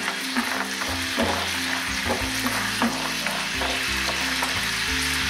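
Walnuts in a sweet-and-sour sauce of honey, soy sauce and sherry vinegar sizzling steadily in a frying pan, stirred with a wooden spatula.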